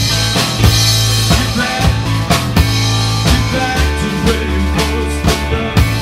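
Rock music: a drum kit keeping a steady beat over held bass notes.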